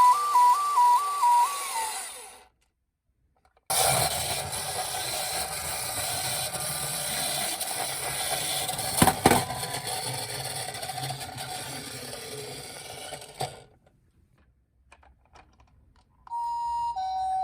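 Toy ambulance minicars' electronic sirens. A fast two-tone warble winds down and stops in the first couple of seconds. After a pause comes about ten seconds of a loud, even, noisy whirr with one sharp click partway, and near the end a slower two-tone hi-lo siren starts.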